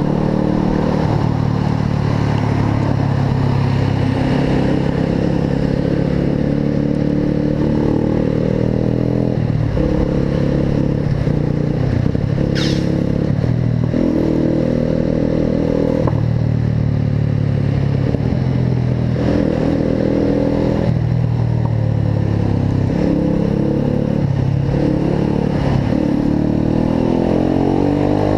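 A motorcycle engine running through an Atalla aftermarket exhaust while riding, its note stepping up and down several times with throttle and gear changes. There is one sharp click about twelve seconds in.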